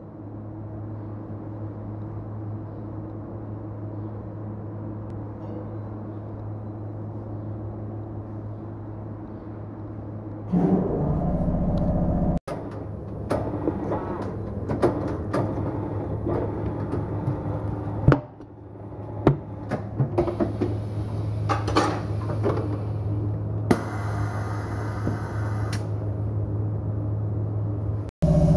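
A steady low hum. About ten seconds in, it gives way to louder clanks, knocks and clicks of metal and tools as a motorcycle tyre is worked on a tyre-changing machine.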